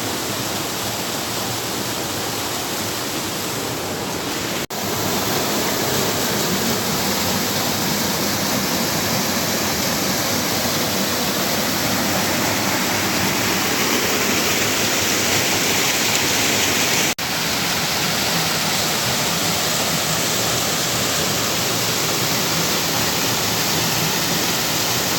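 Steady rushing of water tumbling over a rocky cascade in a river. The sound cuts out for an instant twice, about five seconds in and again about seventeen seconds in, and is a little louder after the first break.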